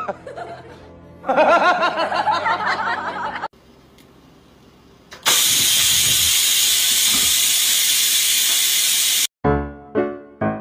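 Electric pressure rice cooker venting steam: a loud, steady hiss for about four seconds that cuts off abruptly. Before it, a cat gives a wavering, drawn-out meow.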